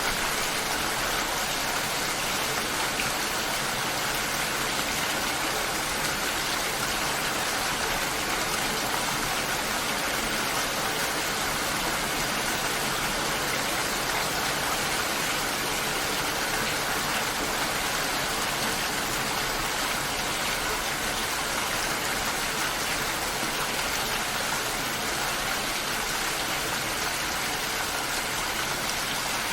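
Steady, heavy rain falling: a dense, even hiss with no breaks.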